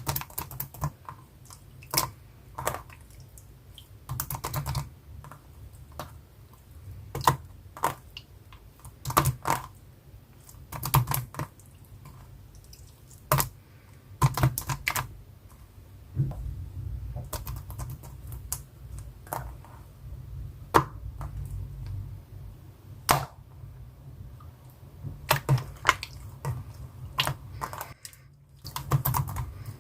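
Irregular sharp clicks and taps, singly and in short clusters, like keys or small hard plastic parts being pressed, over a steady low hum.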